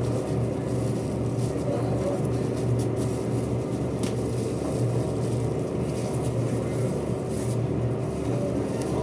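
A steady low mechanical hum with a constant drone and a faint steady tone above it, unchanging throughout.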